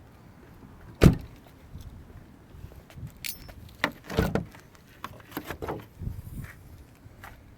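A single sharp knock about a second in, followed by a run of lighter clicks, rattles and short knocks.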